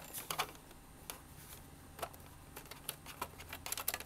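Light, irregular clicks and taps of a cable being handled against a monitor's plastic casing and stand, with a quick run of clicks near the end.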